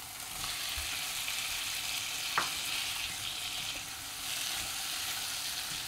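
Fried spiny gourd slices sizzling as they go into hot masala in a non-stick pan, the masala fried until its oil has separated, and a spatula stirring them in. The sizzle grows louder about half a second in, and there is one sharp click a couple of seconds later.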